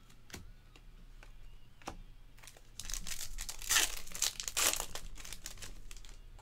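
Foil wrapper of a trading-card pack crinkling as it is torn open, loudest about three to five seconds in, after a few light clicks of cards being handled.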